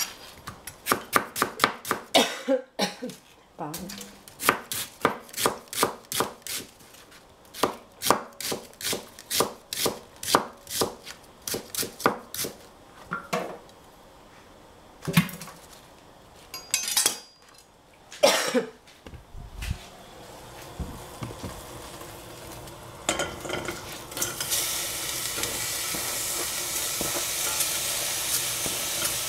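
Chef's knife slicing onion on a plastic cutting board, a quick run of strokes two or three a second, then a few louder knocks. About 24 seconds in a steady sizzle of food frying in a pan starts up.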